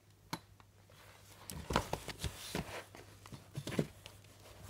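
Handling noise around a toy travel cot and its bedding: a single click, then a run of irregular soft knocks and thumps between about one and a half and four seconds in.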